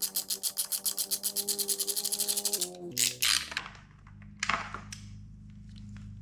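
Background music with a fast, steady beat ends about two and a half seconds in. Then come two short rubbing scrapes, about three seconds in and again near four and a half seconds, as a hand-loosened fender bolt is worked out of the fork leg.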